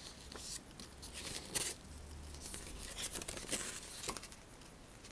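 Paper pages of a model kit's instruction booklet rustling as they are turned, with several soft crinkles and a sharper rustle about one and a half seconds in.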